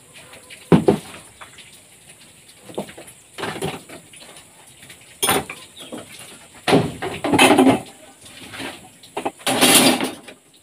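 Metal tools clanking and clattering as they are handled and dropped into a bucket, in several separate bursts, with a sharp knock about a second in.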